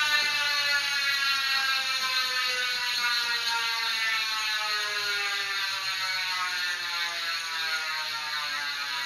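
Colony Wasp cassette hub on a BMX rear wheel freewheeling as the spun wheel coasts down. The pawls make a rapid ratcheting buzz that slowly drops in pitch and gets gradually quieter as the wheel loses speed.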